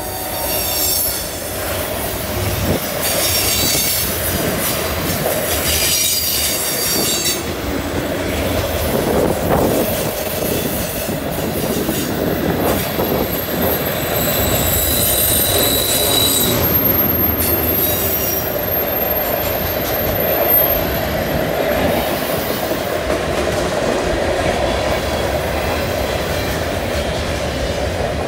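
Freight cars rolling past in a curve: a steady rumble of steel wheels on rail, with high-pitched wheel flange squeal coming and going.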